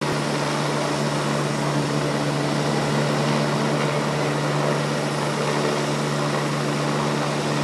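Rescue helicopter hovering: a steady drone of its engine and rotors, with a low hum over a dense rushing hiss.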